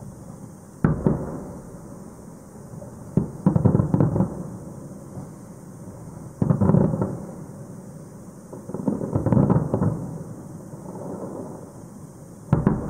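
Fireworks shells bursting in a series of booms about every three seconds, some in quick clusters, each trailing off in a rolling rumble.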